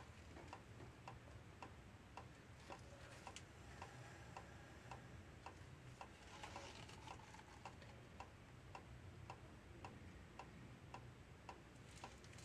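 Faint, steady ticking, about two ticks a second, over a low steady hum and near silence.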